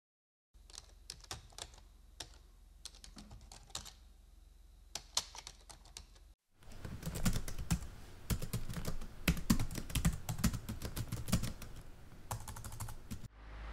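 Typing on a laptop keyboard: scattered key clicks at first, then after a brief break about six seconds in, louder and faster typing.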